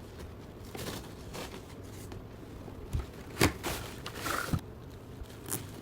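Boxes and packaging being handled in an unboxing: soft rustles and a few sharp taps and clicks, the loudest about halfway through.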